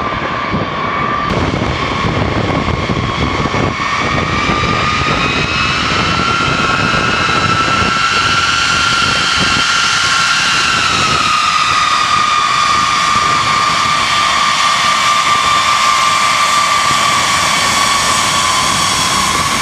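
A B-52H Stratofortress's eight TF33 turbofan engines running as the bomber taxis past: a steady jet roar under a high whine. The whine climbs in pitch over the first half, holds, then drops back a little past the middle and stays level.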